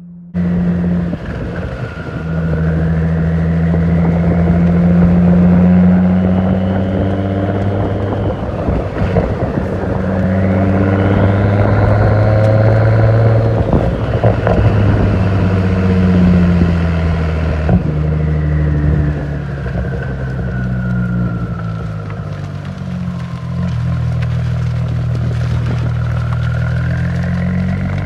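Audi A4's turbocharged engine running through a straight-pipe exhaust, loud and steady, with the pitch rising and falling several times as it is revved and driven.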